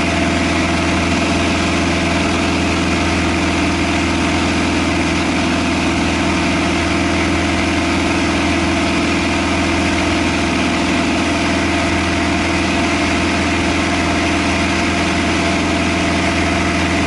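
Cessna 172 seaplane's piston engine and propeller running at a loud, unchanging drone.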